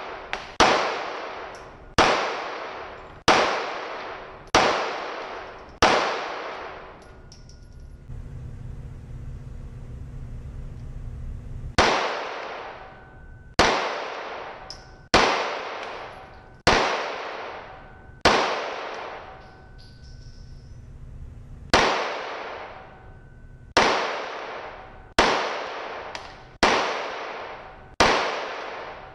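Handgun shots in an indoor shooting range, each a sharp crack with an echoing tail: three strings of about five shots, roughly one every second and a half, with pauses of a few seconds between strings.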